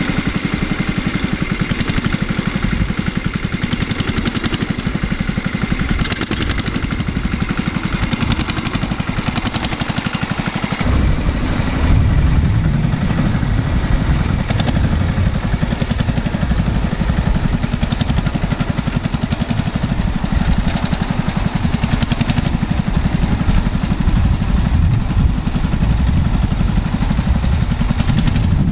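1971 Sears Suburban 12 garden tractor's single-cylinder engine running steadily as it pulls a three-point-hitch cultivator through the soil. About eleven seconds in, the engine becomes deeper and louder, heard up close.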